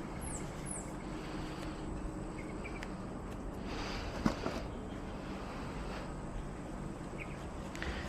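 Outdoor background hum with small birds chirping: two quick, high, falling calls near the start and a few short chirps later. About four seconds in, a brief rustle with a single sharp click.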